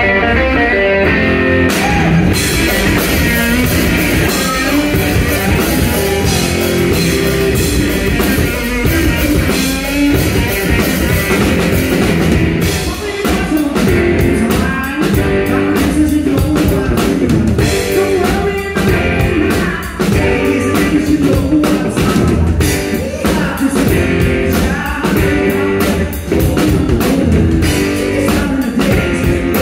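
Live rock music: distorted electric guitar and a drum kit played loud, with a male voice singing. The drums come in about two seconds in, joining the guitar riff.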